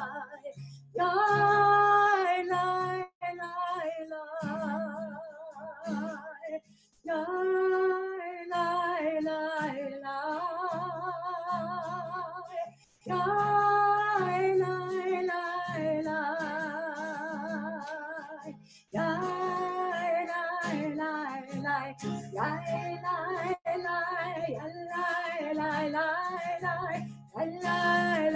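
A woman singing a slow melody with vibrato, accompanied by guitar, in phrases separated by short pauses.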